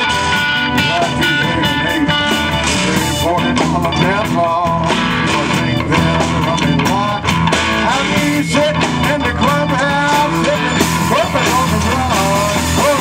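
Live blues-rock band playing: electric guitars, keyboard and drums together at a steady beat, with bending lead lines.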